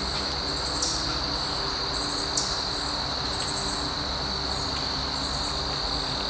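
Steady high-pitched insect trill that holds one pitch throughout, with two short higher chirps about one and two and a half seconds in.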